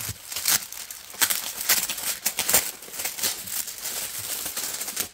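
Plastic packaging crinkling and rustling as it is handled and pulled open, a quick run of scratchy rustles.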